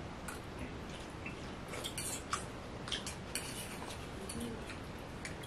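Forks and spoons clinking and scraping against dinner plates as people eat, a scatter of light, irregular clicks.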